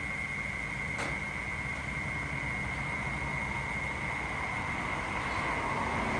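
Steady low rumble of a running vehicle with a constant high-pitched whine over it, and a single click about a second in.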